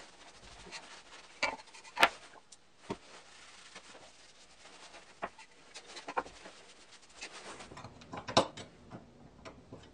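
A cloth rag rubbing water-based varnish onto small pieces of wood, a soft, faint wiping. Several sharp wooden knocks come through it as the pieces are handled and set down, the loudest about two seconds in.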